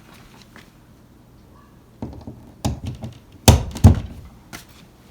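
A series of hard knocks and clunks, quiet for the first two seconds, with the two loudest thuds close together about three and a half seconds in.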